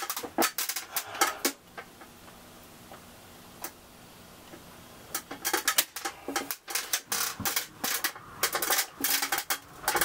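Quick clicks and clattering from a stiff sheathed electrical cable and hand tools being handled at a breaker panel. It comes in two bursts, with a quieter stretch between them broken by a single click.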